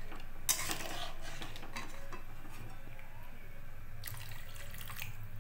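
Water being poured into a wok of fried spice paste to make the curry's gravy, with a metal spatula knocking against the pan about half a second in.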